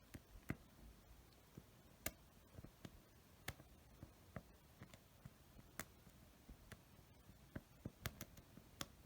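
Near silence with a dozen or so faint, sharp clicks and small taps at irregular intervals, a few clustered near the end.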